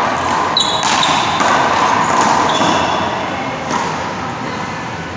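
One-wall handball rally: the small rubber ball is slapped by hand and smacks off the wall and floor in several sharp hits, with sneakers squeaking on the court floor a couple of times, over a loud steady rushing noise.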